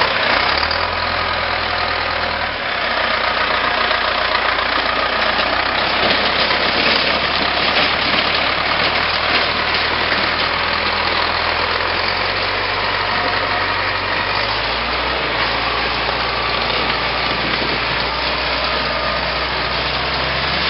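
Tractor engine running steadily, its engine speed changing a couple of times, once early on a few seconds in and again about three-quarters of the way through.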